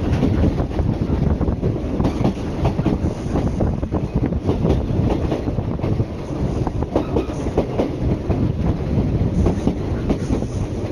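A train running on the JR Kagoshima Main Line, heard through an open carriage window: a steady rumble of wheels on rail, with rapid clicks and knocks from the track.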